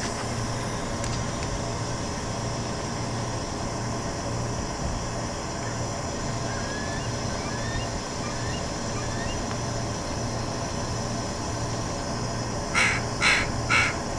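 A crow cawing about four times in quick succession near the end, over a steady low mechanical hum.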